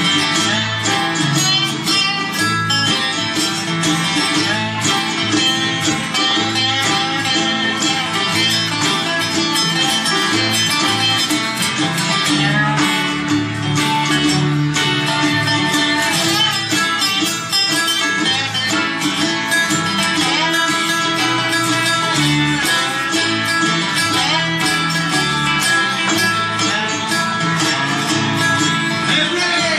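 A live country band plays an instrumental passage, led by guitars over an upright bass line, with no singing.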